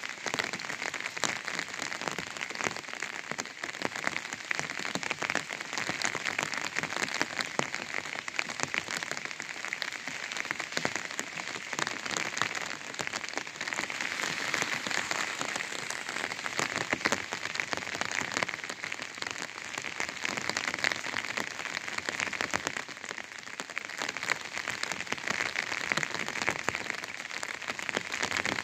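Rain falling on an umbrella: a steady, dense spray of drops ticking on the canopy.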